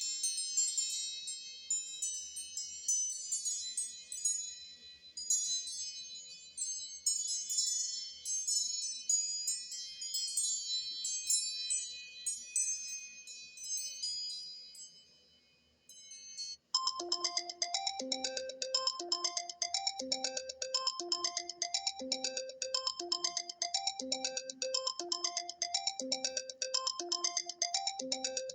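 Two iPad mini 4 ringtones, one after the other: a high, tinkling chime-like melody for about sixteen seconds, then, after a short break, a lower, fuller ringtone whose short phrase of notes repeats over and over.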